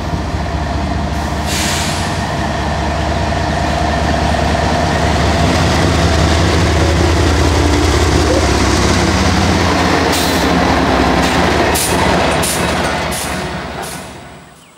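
CSX diesel freight locomotive passing close by, its engine running loud and steady, followed by covered hopper cars rolling past with a series of sharp clicks from the wheels. The sound fades away near the end.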